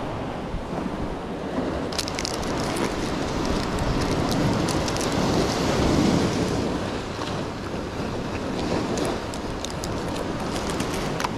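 Steady rush of wind and waves on the microphone, swelling briefly near the middle, with light clicking and crinkling of the plastic rig package being handled.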